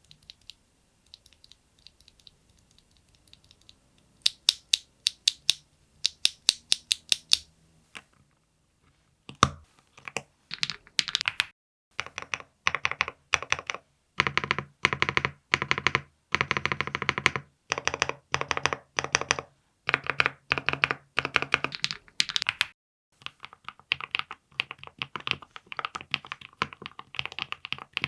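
VXE75 mechanical keyboard with Ania axis linear switches on a polycarbonate plate with full foam. Light clicks come first. Then, about nine seconds in, the large stabilized keys are pressed in repeated runs, each stroke a deep clack. Near the end this gives way to fast continuous typing.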